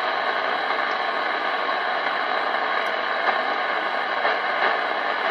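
Small transistor radio giving steady static hiss with a few faint clicks as it is tuned, searching for modulation from a faulty valve radio's circuits.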